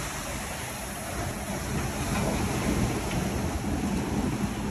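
Rough sea waves rushing and churning along a ship's side, with wind blowing on the microphone and a low rumble underneath.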